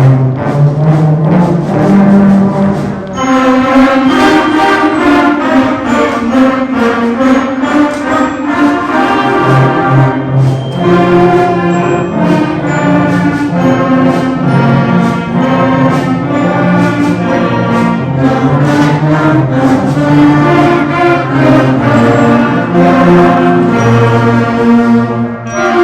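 Instrumental ensemble music led by brass. A fuller band sound comes in about three seconds in.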